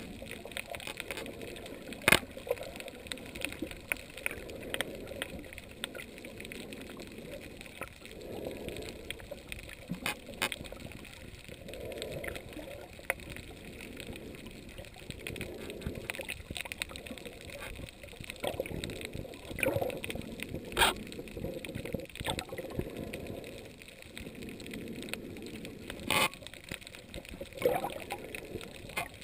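Underwater reef ambience picked up by a submerged camera: a continuous murky rush of moving water that swells and eases every couple of seconds, with scattered sharp clicks and crackles, a few of them loud.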